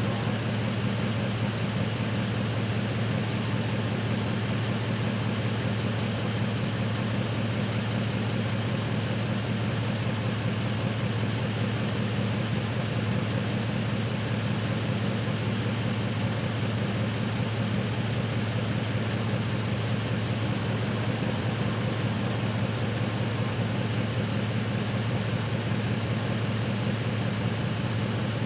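Truck engine idling steadily, an even low hum that never changes in pitch or level.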